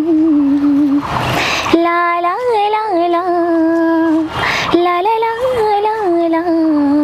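A young woman singing unaccompanied, holding long notes with small ornamental turns in pitch. There are two short pauses for breath between phrases.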